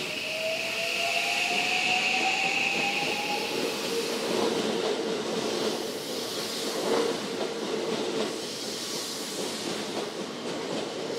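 Electric commuter train moving along the platform, its motors giving a whine that rises in pitch over the first few seconds as it gathers speed, over a steady rumble and hiss of wheels on rail with a few clacks of the rail joints.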